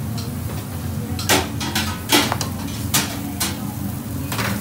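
Kitchen clatter: about five sharp knocks of metal utensils and containers against steel counters, over the steady hum of the extraction.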